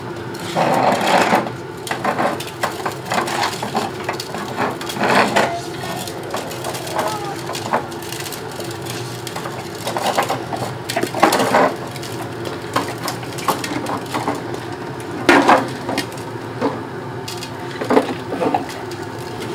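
Plastic ride-on toy wheels rolling and rattling over concrete, with irregular clattering knocks.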